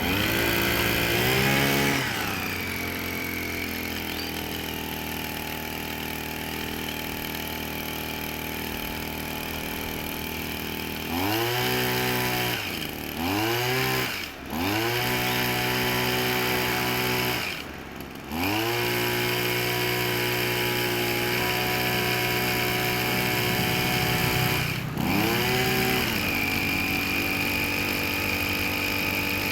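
Small two-stroke engine of a Tasco backpack power sprayer running and being revved: it speeds up about a second in, runs steadily at a lower speed, then in the second half the throttle is dropped and opened again several times, the pitch falling briefly and climbing back each time.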